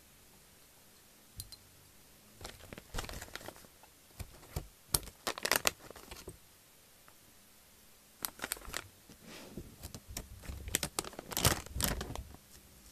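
Plastic snack bags crinkling and rustling as they are handled and opened, in two spells of crackly rustling, the second one louder.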